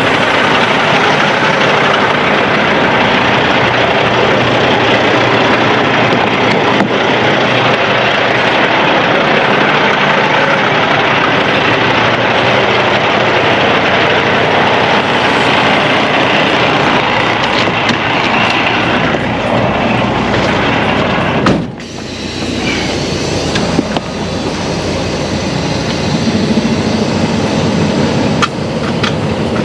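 Semi-truck under way: steady, loud road and engine noise. About 22 seconds in the sound drops sharply and comes back thinner and hissier.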